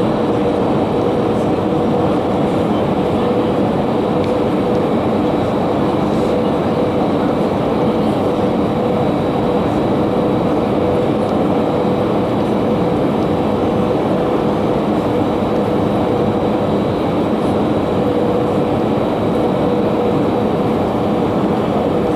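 Airbus A320 airliner cabin noise: a steady rush of air and engine drone with a constant hum running through it.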